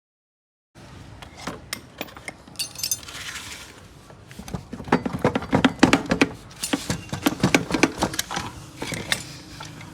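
Metal tools and engine parts clinking and clattering as they are handled: a quick run of sharp metallic clicks and knocks, starting after a moment of silence and densest about midway through.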